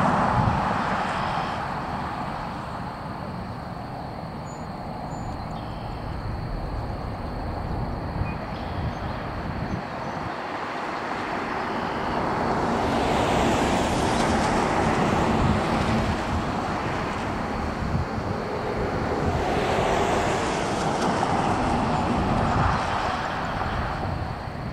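Twin-engine jet airliner's engines at takeoff power as it rolls down the runway on its takeoff run, a steady rushing roar heard from a distance that grows louder about halfway through.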